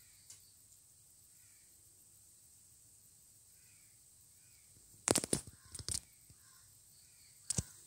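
Faint bird calls repeating now and then in the background. About five seconds in and again near the end come short, loud rustles and knocks as hands handle and knot the mask's T-shirt fabric strings against the table.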